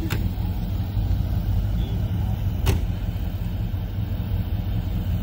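Steady low engine and road rumble of a car in motion, heard from inside the cabin, with two sharp clicks, one right at the start and another about two and a half seconds later.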